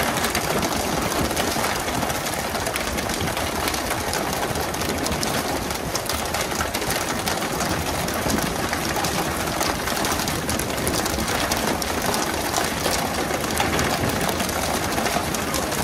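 Fishing boat's engine running under a dense, unbroken clatter of knocks and slaps as tuna are swung aboard on poles and flap on the deck.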